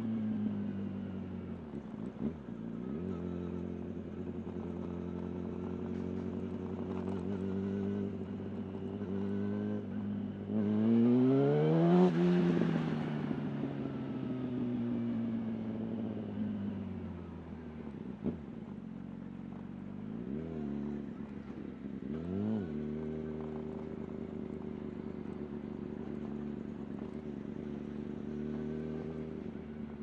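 Yamaha YZF-R1's inline-four engine heard onboard, running at low revs. About ten seconds in it accelerates hard, its pitch climbing steeply to the loudest point, then eases off and falls away slowly. Later come two short throttle blips a couple of seconds apart.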